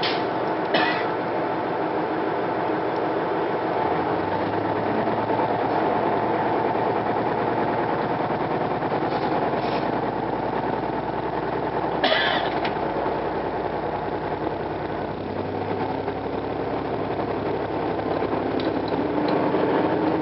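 Diesel railcar running along the line, a steady mechanical hum whose engine note shifts a couple of times. A few sharp knocks or clicks come through, the loudest about twelve seconds in.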